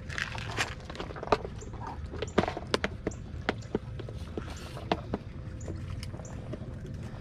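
Scattered sharp clicks and knocks of people moving about and handling gear on a fishing boat's deck, over a low steady rumble.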